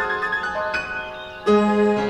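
Background music: held instrumental notes changing a few times, with a louder note coming in about three quarters of the way through.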